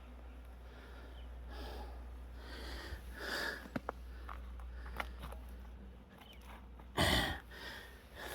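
A person breathing and sniffing close to the microphone, with a few faint clicks, and one louder, sharper noise burst about seven seconds in.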